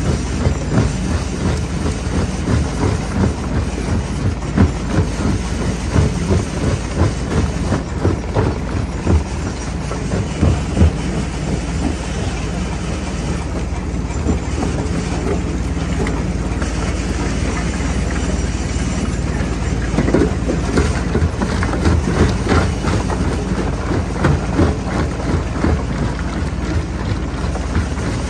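Jaw crusher running and crushing rock: a steady low machine drone under a dense, irregular stream of cracks and knocks as stones break and clatter in the jaw.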